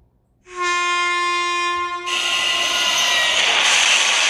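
Locomotive air horn sounds one steady chord for about a second and a half. About two seconds in it gives way to a loud, steady rushing hiss, with the horn's tones fading beneath it.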